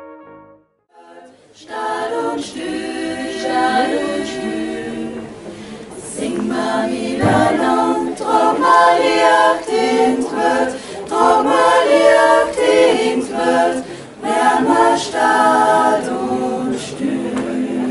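A group of women singing together in harmony, starting about a second and a half in after a moment of near silence.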